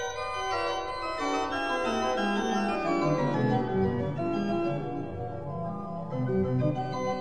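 Background keyboard music with sustained notes, with a run of notes stepping down in pitch over the first few seconds.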